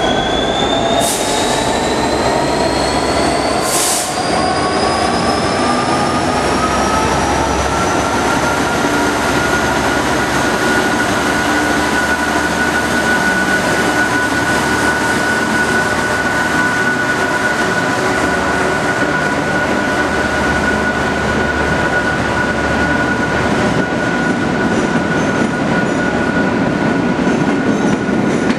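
Class 66 diesel locomotive's EMD 12-cylinder two-stroke engine under power, pulling a rake of coaches out of a covered station. Its engine note and whine rise in pitch over the first ten seconds or so, then hold steady as the locomotive and coaches run past. Two brief high hisses come about one and four seconds in.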